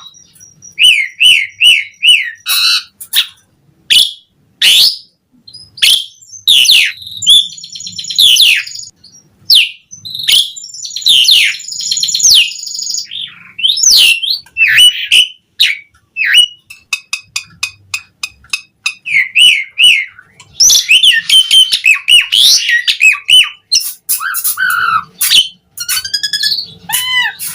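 Asian pied starling (jalak suren) singing a loud, varied song of short whistled notes, quick rising and falling sweeps and bursts of dense chatter. It includes runs of four or five repeated notes, and the chatter peaks around the middle and again about three-quarters of the way in.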